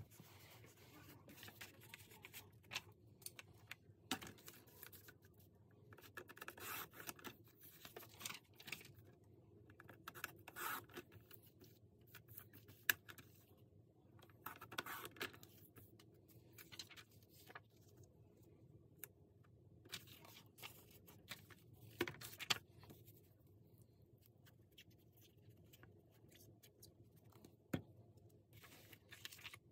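Faint paper handling: sheets rustling and sliding on a table, with scattered scratches and sharp taps, and a paper trimmer cutting a sheet about halfway through.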